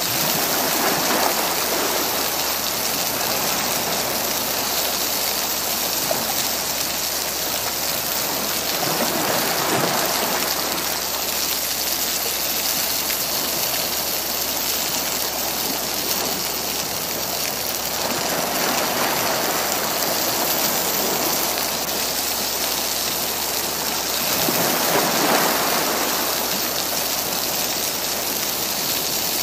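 Water spinach sizzling in a hot steel wok as it is stir-fried, mixed with small sea waves washing against rocks close by. The steady hiss swells and eases every eight seconds or so.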